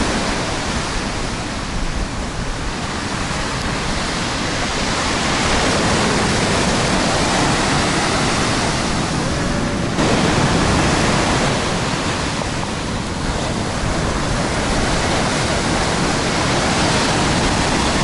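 Heavy storm surf breaking and washing up a sand-and-pebble beach, a loud continuous rush that swells and eases as the waves come in, with wind buffeting the microphone.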